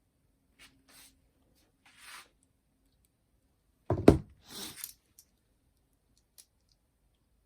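Handling noises from repair work: a few light rubs and scrapes, then a sharp knock about four seconds in followed at once by a scrape, and two faint clicks near the end.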